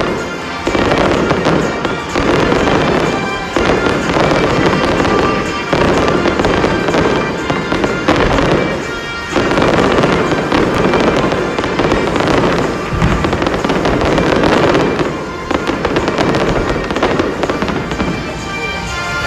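Aerial fireworks shells bursting in rapid, overlapping succession, a dense barrage with a few brief lulls.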